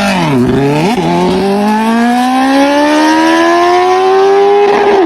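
Superbike engine and exhaust accelerating hard: the pitch drops briefly about half a second in, climbs steadily for about four seconds, then drops briefly again near the end at the next upshift.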